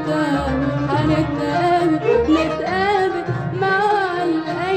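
Arabic classical music played by a live ensemble: an ornamented melody that bends and wavers in pitch, over a low pulsing bass.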